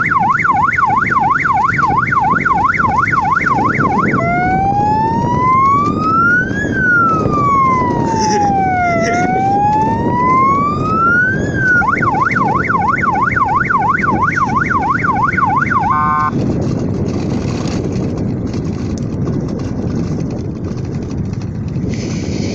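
Add-on electronic police-style siren horn on an electric bicycle sounding a fast yelp, about three sweeps a second. About four seconds in it switches to a slow wail rising and falling twice, then back to the fast yelp, which breaks off in a stutter about 16 seconds in, leaving only a steady low noise.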